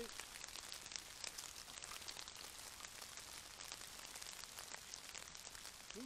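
Light rain pattering on leaf litter and branches: a faint, steady hiss of irregular drips.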